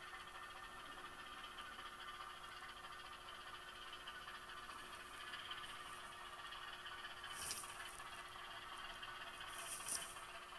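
HO scale model diesel switcher's sound-decoder engine sound, faint and steady, as the locomotive creeps along the track. Two short hissing bursts come about seven and a half and ten seconds in.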